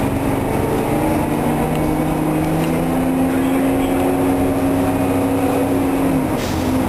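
Detroit Diesel 6V92TA two-stroke turbocharged V6 diesel of a 1990 Orion I transit bus running under way, heard from inside the cabin with road noise, its engine note changing about three seconds in. A short hiss comes near the end.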